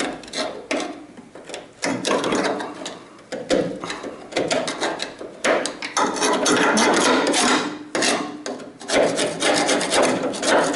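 Irregular scraping and rubbing with scattered knocks and clicks from hand work on the tailgate's metal parts, in longer scraping spells about halfway through and again near the end.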